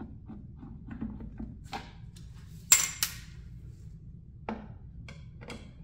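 A screwdriver backing self-tapping screws out of a Kawasaki Ninja 400's plastic airbox lid: light clicks and ticks of the driver on the screws and plastic. One loud sharp clatter about three seconds in, with another smaller knock about a second and a half later.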